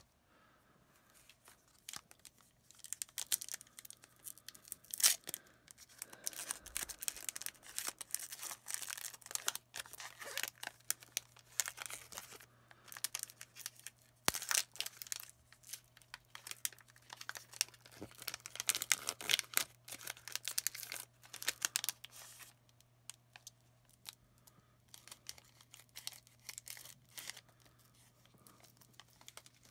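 Wrapper of an Upper Deck Series 1 hockey card pack being torn open and crinkled in the hands, a ragged, messy tear, crackling in bursts for about twenty seconds before it quiets near the end.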